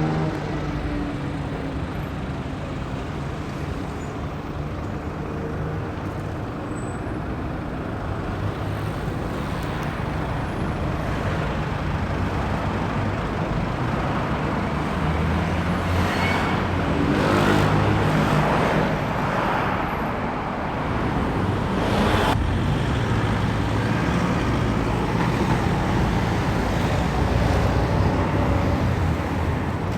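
Steady road traffic noise: a continuous rumble of passing motor vehicles that swells a little past the middle, with a brief sharp sound a few seconds later.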